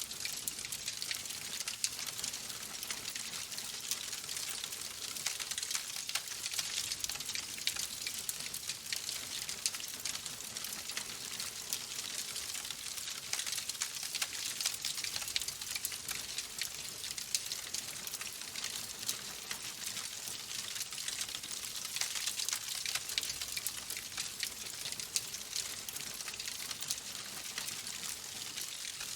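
Logs burning in a fireplace, crackling steadily: a dense hiss with many quick pops and snaps.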